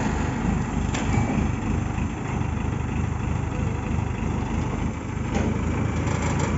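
Diesel engine of an Escorts pick-and-carry mobile crane running steadily.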